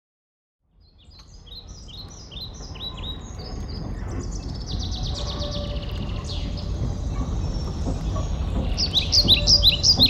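Soundtrack ambience fading in after a second of silence: small birds chirping in quick runs of short, falling notes over a low rumble that grows steadily louder. The chirping is loudest near the end.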